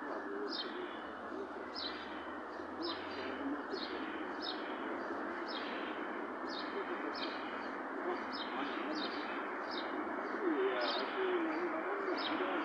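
A bird chirping over and over, short sharp falling chirps about two a second, over a lower wavering murmur that swells near the end.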